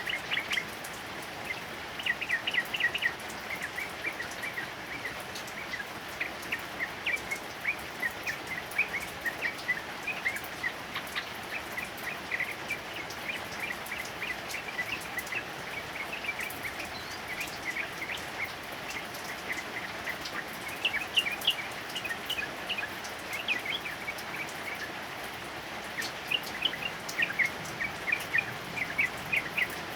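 Yellow-vented bulbul (trucukan) singing in quick runs of short chirping notes, over steady heavy rain.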